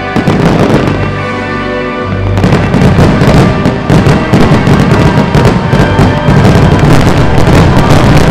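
Fireworks finale: rapid, dense bursts and crackles of fireworks over the show's loud music, the firing thickening about two seconds in.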